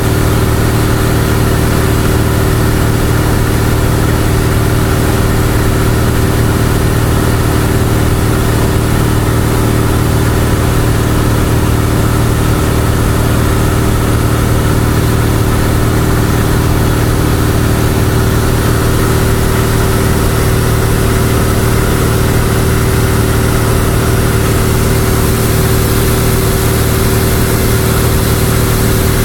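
A Cessna 172's piston engine and propeller drone steadily in flight, heard inside the cabin.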